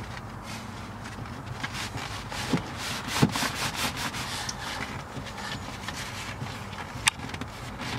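Hands rubbing and smoothing a fabric seat cover stretched over a truck seat: a continual scuffing and rustling of cloth, with a couple of sharper knocks about three seconds in and near the end.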